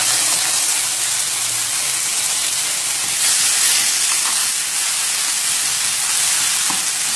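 Freshwater mussel meat dropped into hot oil with fried shallots: a sudden loud sizzle that carries on steadily as the meat is stir-fried to firm it up.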